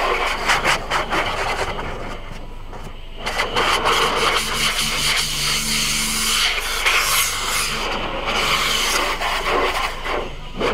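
Automatic car wash heard from inside the car: water spraying and wash brushes rubbing and slapping over the windshield and body, with a rapid patter early on and a louder stretch of scrubbing from a few seconds in. A low machine hum sits under it in the middle.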